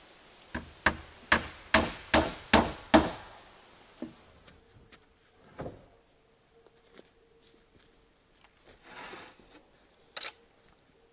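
Hammer driving a nail into wooden roof boards: seven quick blows about a third of a second apart, each ringing briefly. Afterwards, scattered light knocks of boards being handled, and one sharp knock near the end.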